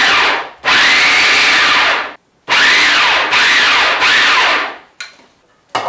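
Countertop blender motor pulsed in bursts of one to two seconds, three times with a short blip near the end, chopping a chunk of bologna; the motor's pitch swings up and down as it bites into the meat.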